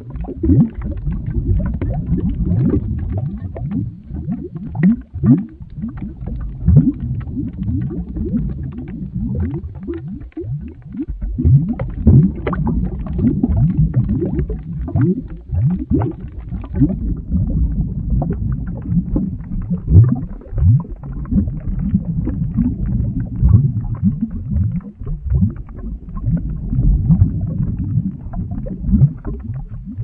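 Boiling-lava sound effect: a thick liquid bubbling hard, a dense, unbroken run of deep glugs and bubble pops with short rising gloops.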